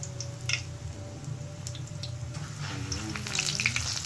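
Gram-flour-battered spinach leaves deep-frying in hot oil for pakoras: a steady sizzle with scattered crackles and pops that thicken in the last second, over a low steady hum.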